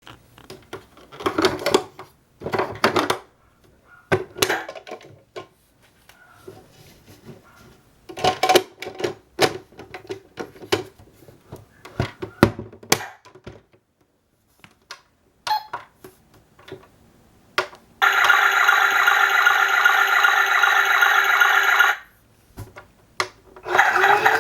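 Children's toy washing machine being handled: scattered clicks and knocks for most of the time. Then, about 18 seconds in, its electronic sound effect plays steadily for about four seconds, stops, and starts again near the end.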